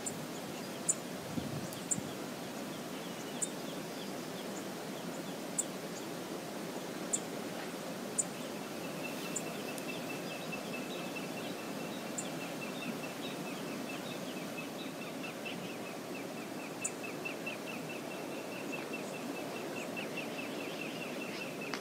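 Steady rush of flowing river water in the open. Over it come scattered short, sharp high chirps, and from about nine seconds in a fast run of high ticking notes.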